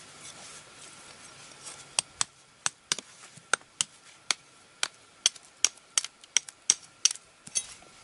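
Large bushcraft knife chopping at the end of a wooden stick: a run of sharp, irregular wooden knocks, about three a second, starting about two seconds in and stopping just before the end.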